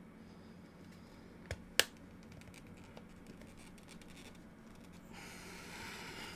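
A pry pick working at the plastic casing of a Google Nest Hello doorbell to pop it open: two sharp clicks a little under two seconds in, the second louder, then faint small ticks, and a longer scrape near the end.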